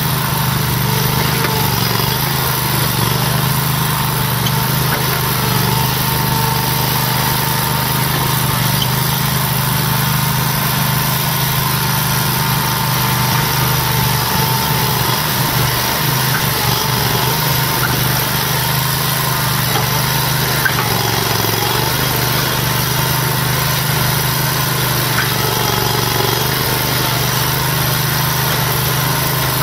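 John Deere 318 garden tractor's 20 hp Honda engine running steadily under load as the tractor pushes dirt with its front blade.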